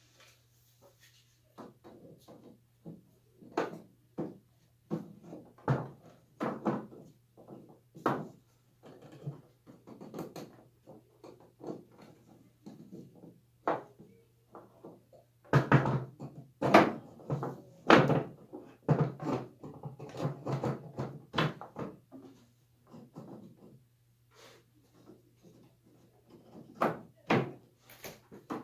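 Wooden stretcher frame knocking and clacking against turned wooden spindles and the desktop as it is handled and fitted onto a desk-top bridge: a long run of irregular thunks, busiest and loudest in the middle, over a steady low hum.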